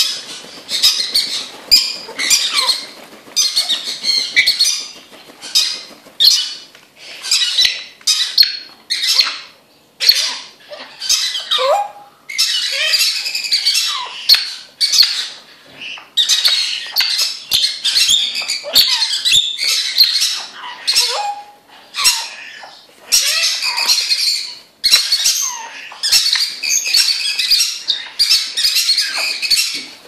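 Young Congo African grey parrots squawking almost without pause in short, harsh, rapid bursts, with their wings flapping, and a few short lower sliding notes in among them.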